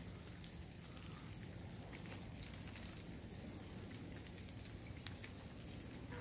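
Insects calling in a steady, high, thin chorus, over a low rumble.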